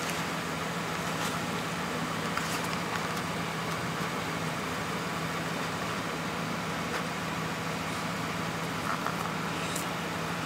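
Steady outdoor background noise: a constant low hum under an even hiss, with a few faint ticks.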